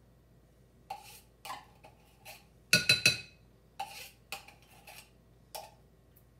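A table knife scraping and clinking against a metal can of thick sweetened condensed milk as it is worked out into a glass bowl. The scrapes are scattered, with a louder run of three or four ringing metal knocks about three seconds in.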